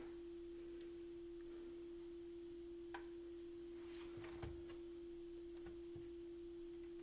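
A steady, faint pure tone, one unchanging pitch, with a few faint clicks of small parts being handled.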